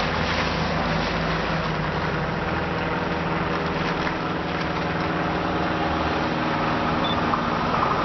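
Double-deck electric regional train approaching round a curve: a steady hum of its motors and wheels on the rails, growing louder near the end as it draws close.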